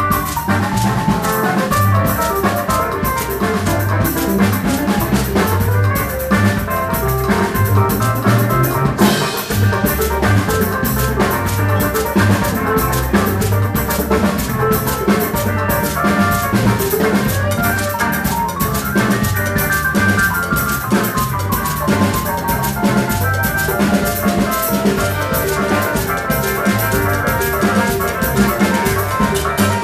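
Live afro-Latin band playing an instrumental dance groove: drum kit and hand percussion drive a steady beat under bass, keyboards and guitar.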